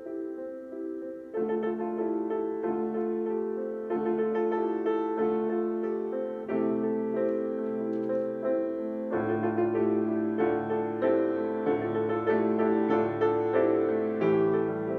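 Piano playing a slow piece in full, ringing chords, a new chord about every second. Deeper bass notes come in about halfway through.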